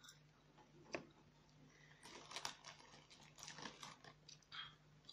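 Near silence with faint scattered clicks and scrapes of face-paint brushes and pots being handled in a plastic box, over a low steady hum. One sharper click comes about a second in.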